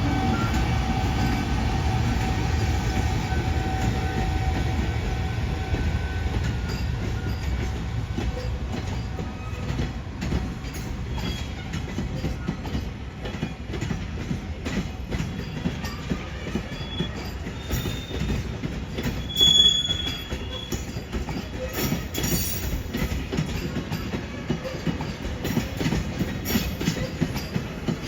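A freight train's wagons rolling past: a steady rumble of wheels on rail with rhythmic clacking over the rail joints. Short high wheel squeals come in, the loudest about twenty seconds in.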